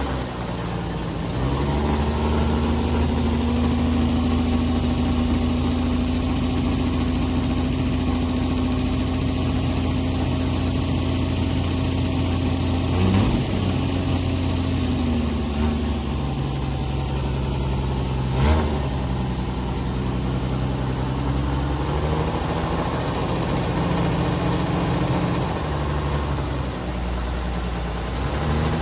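Old Ford Falcon's engine running, its speed raised a second or so in and held for about fourteen seconds, then falling back to idle and rising and falling again. Two sharp knocks stand out, about 13 and 18 seconds in.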